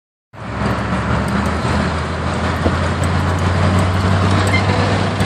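Chevy truck's 350 V8 engine running steadily with road noise, as the truck is driven.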